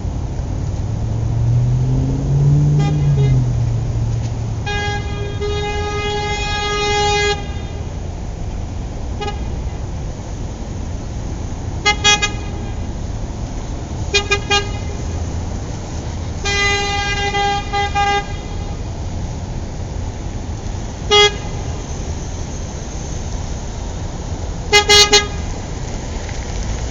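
Car horn honking over steady traffic rumble: one long blast, a few short taps, another long blast, a single toot, and a quick triple toot near the end. A low engine note rises and falls in the first few seconds.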